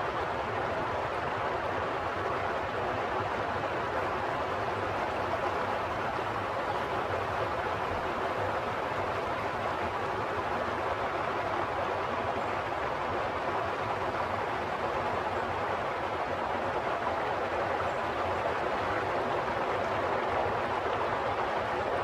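Flowing water making a steady, even rush, with no swells or breaks.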